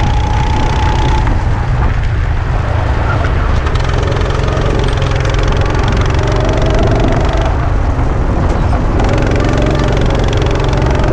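Go-kart engine running hard under load as the kart laps, its note easing off briefly twice and climbing again in between. Wind rushes over the onboard microphone.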